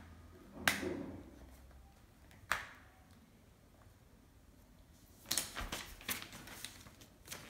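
Handling sounds while fitting a microfiber mop head onto a spin mop's plastic base: two sharp clicks in the first few seconds, then a quiet stretch, then a cluster of clicks and paper rustling about five seconds in.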